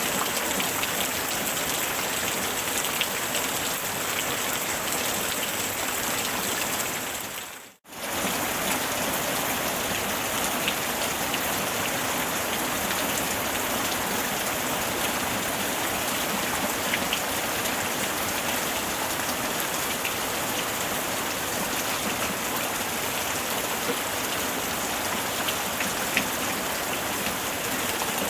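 Steady rain falling, a dense patter of drops on surfaces with scattered sharper drop ticks. About eight seconds in the sound fades out almost to silence and returns within a second.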